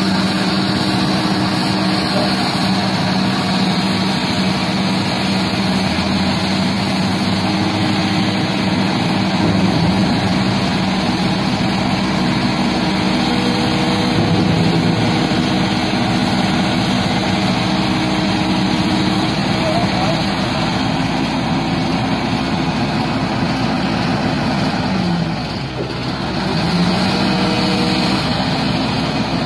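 Hitachi crawler excavator's diesel engine running steadily while the boom and arm work. About 25 seconds in, the engine note sags in pitch and briefly quietens, then climbs back.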